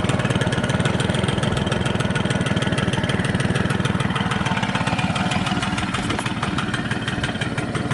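Honda Squash AB11 moped's small two-stroke single-cylinder engine idling steadily with an even firing rhythm, running without any abnormal noise.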